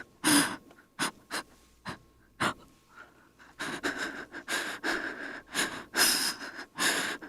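A woman's frightened breathing: a breath and a few short, sharp gasps with pauses between them, then, from about halfway through, a run of quick, shaky breaths at about two a second.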